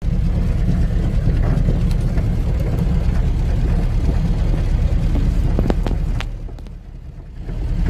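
Vehicle driving across rough field ground, heard from the cab: a loud, steady low rumble, with a few knocks and rattles from bumps about six seconds in. The rumble then drops away briefly before picking up again near the end.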